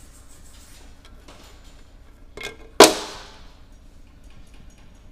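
A small knock, then about half a second later a loud metallic clank that rings briefly and fades, as metal engine parts are handled.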